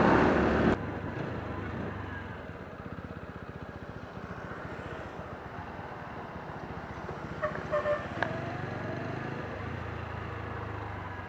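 TVS Apache RTR 160 4V's 159.7 cc single-cylinder engine running at low revs as the bike rolls along slowly. Loud wind rush cuts off suddenly under a second in, and a few short high tones sound around eight seconds in.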